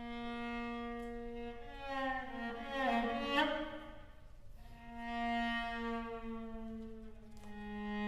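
String quartet of two violins, viola and cello playing long held bowed notes. About two seconds in, the voices slide in pitch and swell. Later the long held notes swell again.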